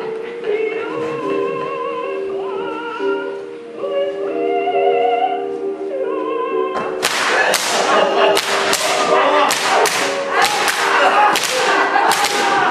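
Music with held, wavering sung notes, then from about seven seconds in whips lashing in a rapid, uneven series of sharp cracks, about two a second, louder than the music.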